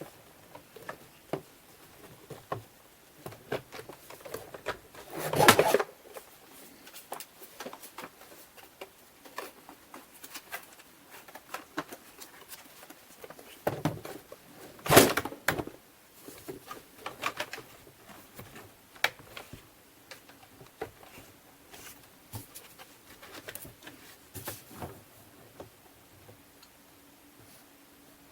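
Scattered light clicks, taps and knocks of plastic vacuum cleaner parts being handled and fitted together by hand, with two louder clatters about five and fifteen seconds in.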